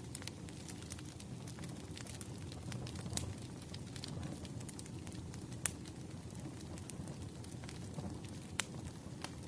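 Wood fire crackling: a steady low rumble of burning logs with scattered sharp pops, one standing out a little past halfway and another near the end.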